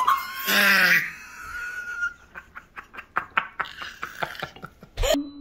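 A child's loud excited cry, then a run of quick bursts of laughter. A short thump near the end.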